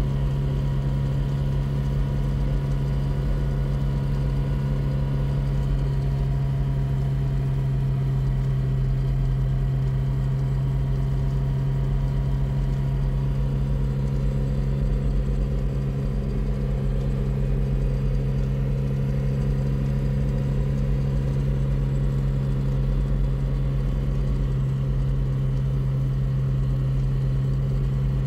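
Steady engine hum and road noise heard from inside the cab of a moving vehicle.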